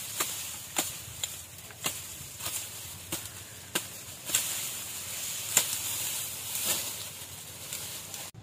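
Dry sugarcane leaves crackling and snapping as they are pulled and broken off by hand, with a sharp crack every half second to a second.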